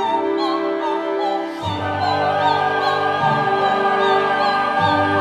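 Opera music: singing with vibrato over sustained orchestral chords. About a second and a half in, the harmony shifts and a deeper bass line comes in.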